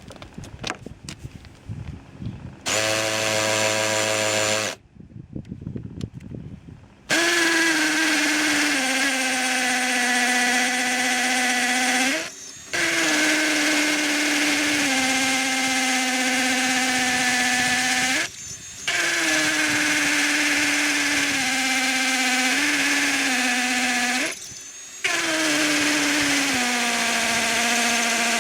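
Electric drill running in four long runs of about five seconds each, with short gaps between. In each run the whine starts higher and settles lower as the bit takes load. Before them come a few knocks and a shorter run of about two seconds.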